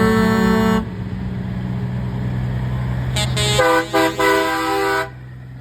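Semi-truck air horns blasting. One long blast cuts off about a second in. After a pause a second horn sounds in a few short blasts, ending near the end, with a steady low engine rumble beneath.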